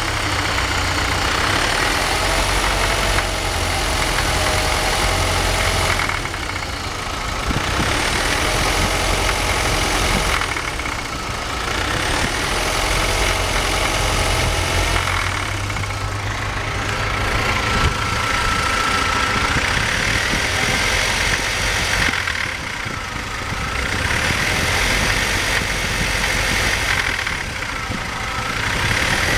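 BMW 318i four-cylinder engine idling roughly and unevenly. Its sound sags and recovers about every five seconds.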